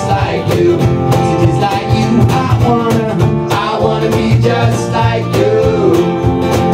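Live acoustic band playing: acoustic guitar, electric bass guitar and a cajon beating a steady rhythm under a lead vocal line sung without clear words.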